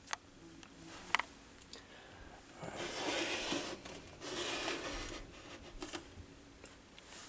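Handling noise from a plastic table fan being moved: two sharp clicks, then two stretches of rubbing and scraping about three and four and a half seconds in.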